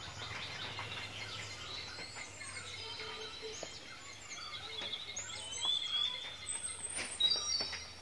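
Birds singing and chirping: a run of short whistled calls and trills, with a couple of light knocks near the end.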